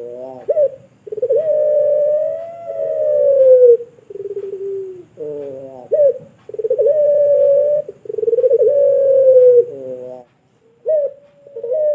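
Puter pelung dove cooing: a series of long, drawn-out coos, each held for one to three seconds, linked by short swooping notes, with a brief pause a little after ten seconds in.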